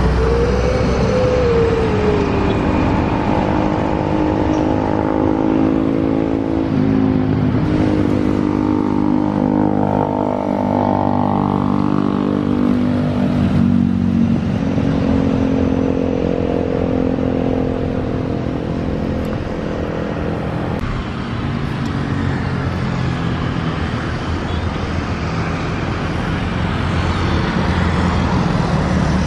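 Jet engines of a Boeing 737 airliner running at taxi power: a loud, steady rumble with a whine whose pitch slides up and down as the plane taxis and turns on the runway. The sound changes abruptly about two-thirds of the way through.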